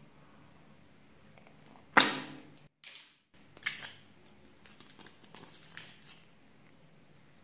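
Blue plastic slime container snapped open with a sharp crack about two seconds in, followed by a second, smaller crack. Faint sticky crackles and squishes follow as the slime is pulled out of the container.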